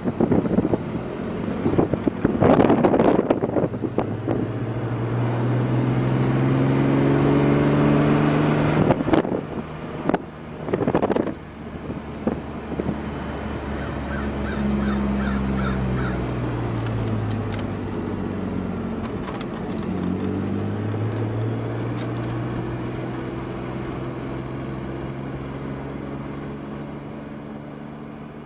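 Car engine heard from inside a moving car, its pitch rising as it accelerates, holding steady, dropping as it eases off, then rising again. There are a few short, loud, rough bursts of noise near the start and about ten seconds in.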